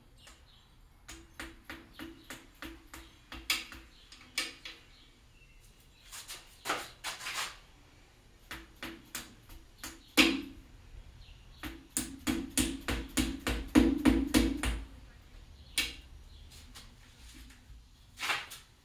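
Hand tools knocking on metal engine parts: sharp knocks in uneven runs of a few a second, each with a short ring, and a faster, heavier run of blows about halfway through.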